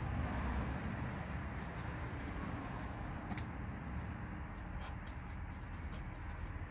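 An old vinyl sticker being picked and peeled off a car's painted fender by gloved fingers, with faint scattered crackling ticks from about halfway on. A steady low rush runs underneath.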